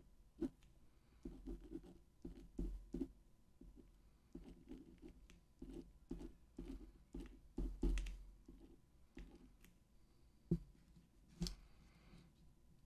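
Irregular small taps, clicks and scratches of things being handled at a desk close to the microphone, with a few louder knocks and dull thumps.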